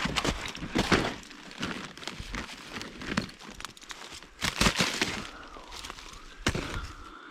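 Irregular clicks, knocks and rustling as plastic maple-sap tubing drops and spiles are handled and fitted, with a faint wavering squeak toward the end.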